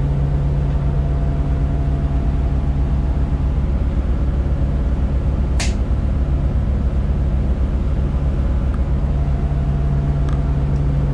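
Volvo Penta D6 380 diesel sterndrive engine of a brand-new boat, running steadily under way, with the rush of water and wind around the hull. A single sharp click comes about five and a half seconds in.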